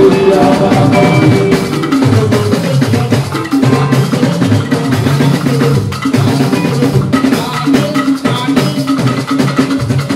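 Live band music: a male singer on a microphone over drums, percussion and electric guitars.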